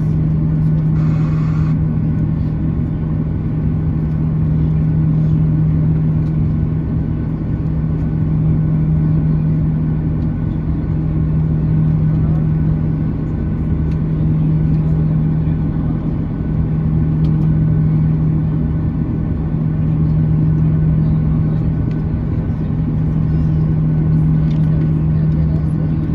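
Boeing 737-800's CFM56-7B jet engines idling while the airliner stands still, heard from inside the cabin over the wing: a steady low hum over a rumble that swells and dips gently. A brief hiss about a second in.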